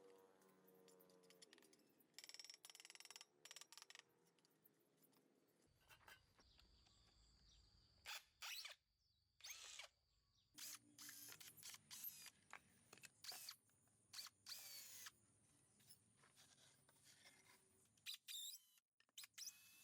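Faint, intermittent tool work in short, repeated bursts, like a small power tool run briefly again and again.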